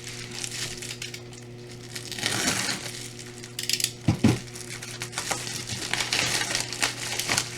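Plastic and paper packaging crinkling and rustling as a package is cut and torn open, with two sharp knocks about four seconds in.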